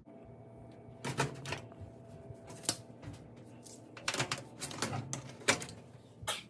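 Sharp metal clicks and light clacks from aluminium mesh grease filters being handled and latched into the underside of a stainless steel range hood. The clicks come singly and in quick pairs, scattered over several seconds.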